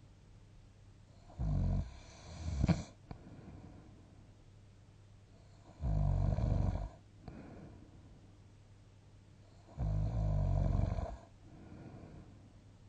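A sleeping person snoring in deep sleep: four snores, the first two close together, then one about every four seconds, each lasting around a second, with soft breathing between.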